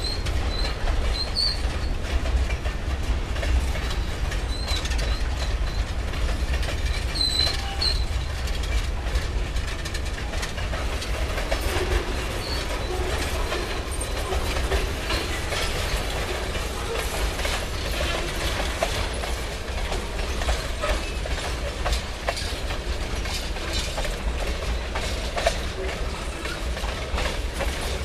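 Loaded freight cars rolling past on steel wheels, clicking steadily over the rail joints, with short high-pitched wheel squeals in the first several seconds.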